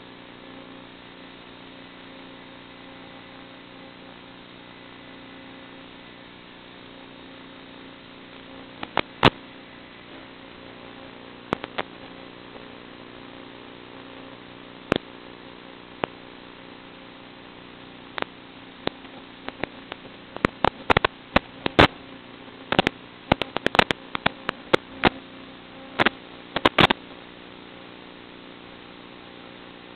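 Steady electrical hum and static on the audio channel of an analog FPV video link. From about nine seconds in, sharp clicks and pops break through, crowding together in the last ten seconds.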